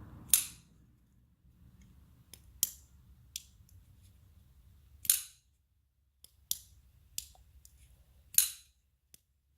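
Spyderco Manix 2 folding knife being worked open and shut. It gives three sharp metallic snaps with a short ringing 'ting', shortly after the start, about halfway and near the end, with lighter clicks of the blade and lock between them.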